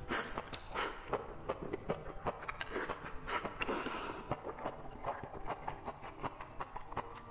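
Close-miked eating: chopsticks clicking and scraping against a ceramic bowl as rice is shoveled into the mouth, mixed with wet chewing and lip smacks in an irregular run of short clicks.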